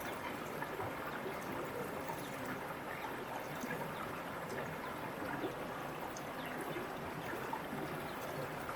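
Water running over rocks in a waterfall stream: a steady rush with small splashes and droplets ticking through it.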